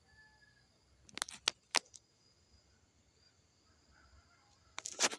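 Quiet jungle ambience with a faint steady high insect drone, broken by a few sharp clicks about a second in, near two seconds and a louder cluster near the end.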